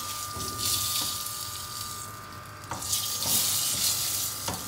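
Hot oil sizzling in a frying pan as a tadka of curry leaves, cumin, bay leaf and whole dried red chillies fries, with a few light clicks. The sizzle thins out about two seconds in and picks up again near three seconds.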